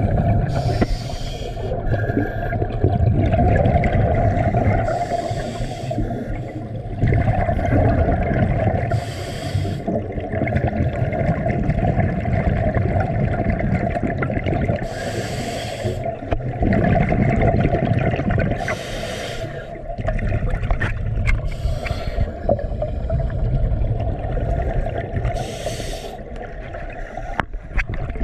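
Scuba diver breathing through a regulator underwater: a hissing inhale about every four to five seconds, each followed by a long gurgling rumble of exhaled bubbles.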